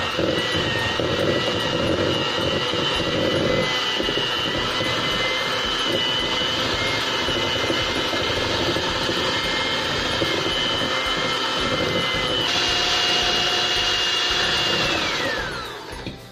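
Electric hand mixer running with its beaters in room-temperature butter, creaming it in a stainless steel bowl: a steady motor whine. The whine changes note about three-quarters of the way through, then falls in pitch and dies away near the end as the mixer is switched off.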